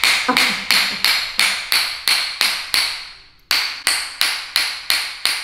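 Rhythmic tapping of a chiropractic adjusting hammer, about three strikes a second, each with a short ringing decay, with a brief pause a little past three seconds in.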